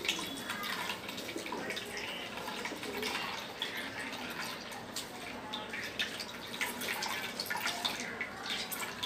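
Vegetable juice dripping and trickling into a plastic bowl as a cloth full of blended pulp is squeezed, an irregular patter of small drips and splashes.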